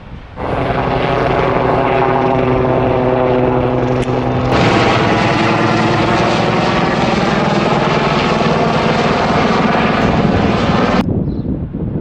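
Sikorsky S-76 twin-turbine helicopter flying past, a loud steady drone of several held tones. It starts abruptly about half a second in, turns louder and hissier about four and a half seconds in, and cuts off sharply about a second before the end.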